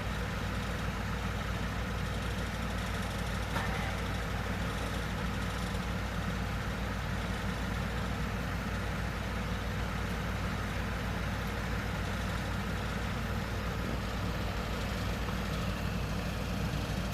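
Heavy engine of tram track-works machinery idling steadily, a constant low hum, with one brief knock about three and a half seconds in.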